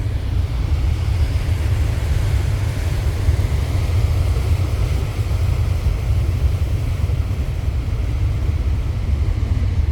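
Heavy typhoon surf breaking on a boulder beach: a continuous, loud, rumbling wash of waves with a deep low-end rumble.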